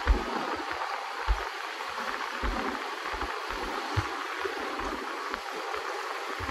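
Steady outdoor rushing noise, with wind buffeting the microphone in irregular low thumps.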